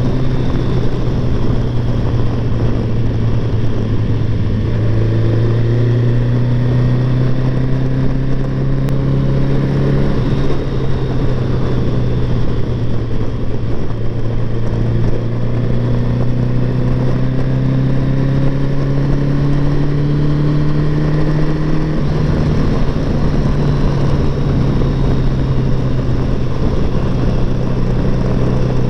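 Kawasaki GTR 1000 inline-four motorcycle engine pulling steadily under way, its note rising slowly and dropping back at gear changes about ten and twenty-two seconds in, over a steady rush of wind.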